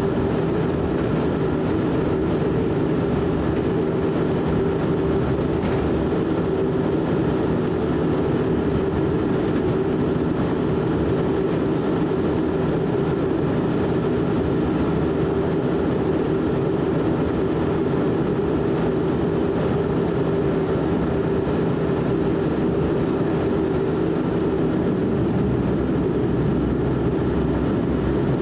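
Cabin noise of a De Havilland Canada Dash 8 Q400's Pratt & Whitney PW150A turboprop engines at taxi power: a steady drone with several held tones, heard from inside the cabin.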